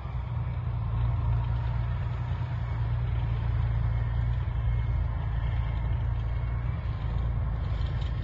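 A tracked BMP infantry fighting vehicle's diesel engine running with a steady low rumble as the vehicle drives across the field.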